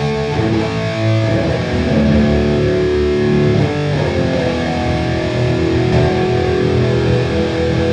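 Electric guitar played through a Boss Katana Gen 3 212 amp with its contour switched off, bass at 40, mids at 65 and treble at zero; held notes and chords ring out, and the playing stops abruptly at the end.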